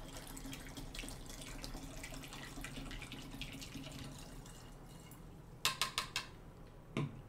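Liquid phytoplankton culture poured from a plastic bottle through a plastic funnel into a plastic bottle, trickling and dripping. A few sharp clicks come near the end.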